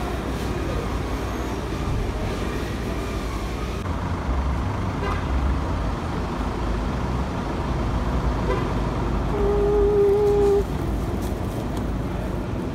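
Steady street traffic noise, with a vehicle horn sounding one held note for about a second, about nine seconds in.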